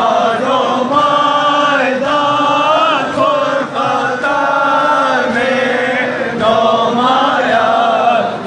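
Loud chanting by a crowd of men in unison, in long held phrases that rise and fall: a Muharram mourning chant (noha/matam).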